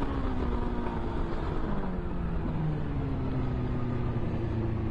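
Motorcycle engine, heard from the rider's position, its pitch falling as the revs drop about two seconds in, then running steady at lower revs.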